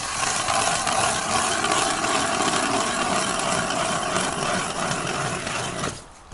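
Powered ice auger drilling a hole through sea ice: a steady motor whine over the grinding of the blades, starting abruptly and cutting off about six seconds in.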